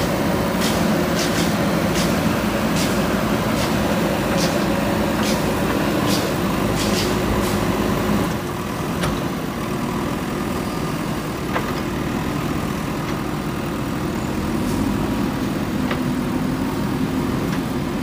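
JCB 3DX backhoe loader's diesel engine running steadily under hydraulic work, with a string of sharp clicks over the first eight seconds; the engine note drops slightly about eight seconds in.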